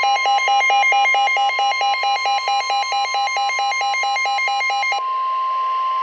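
Weather-radio warning alarm tone: a steady, loud tone near 1 kHz (the 1050 Hz warning alarm tone), with a lower alarm beep pulsing rapidly, about four or five times a second, over it. The pulsing beep stops about five seconds in, leaving the steady tone alone. It marks the start of a new severe thunderstorm warning.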